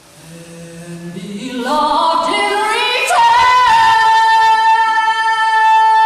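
A woman's solo singing voice climbing in steps from a low note to a high one over about three seconds, then holding the high note steadily.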